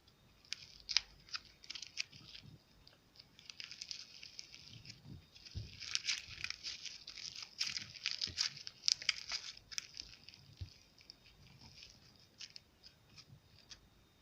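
Slime being kneaded and stretched by hand: dense sticky crackling and popping, busiest in the middle and thinning out toward the end.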